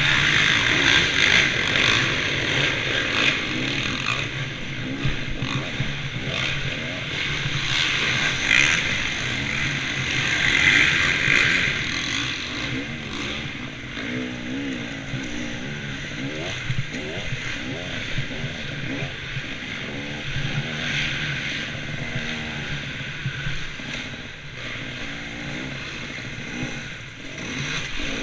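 Motocross bike engine racing, revving up and easing off again and again as the throttle opens and closes, under a loud rushing hiss.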